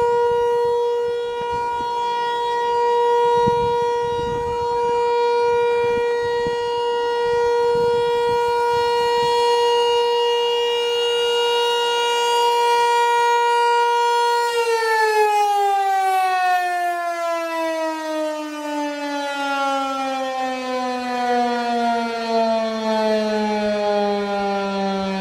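American Signal T-128 rotating outdoor warning siren sounding a steady single tone, then winding down about halfway through, its pitch sliding steadily lower as the rotor coasts to a stop at the end of the test.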